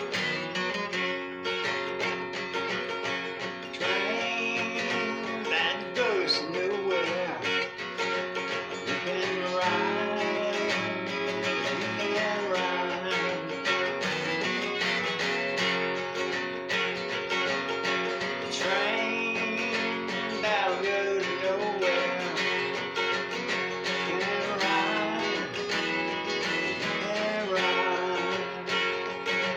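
Acoustic guitar with a capo, played solo in a country blues style: a continuous picked and strummed tune.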